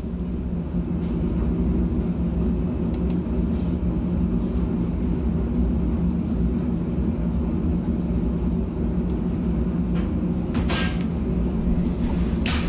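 Steady low mechanical hum of shop machinery, with two brief knocks near the end as a screen frame is handled.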